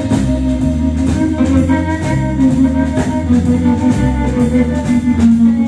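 Blues band playing live on amplified electric guitar, electric bass, drum kit and harmonica, with long held notes over a steady drum beat.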